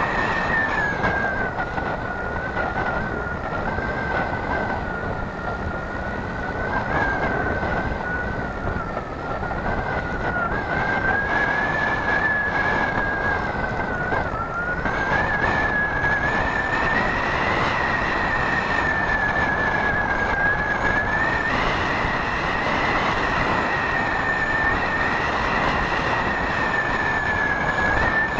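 Radio-controlled model plane's motor and propeller heard from on board in flight: a steady high whine that drifts slowly up and down in pitch, over loud rushing air noise.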